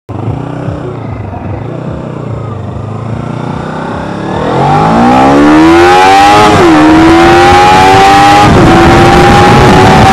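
Kawasaki Ninja 300's parallel-twin engine accelerating hard under full throttle: from about four seconds in the revs climb steeply, dropping briefly at two upshifts about six and a half and eight and a half seconds in, then climbing again, over rising wind noise.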